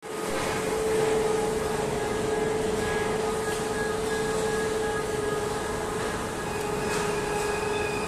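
Steady machinery din of a steel rebar rolling mill: a broad running rumble with a constant mid-pitched drone and fainter higher whines over it.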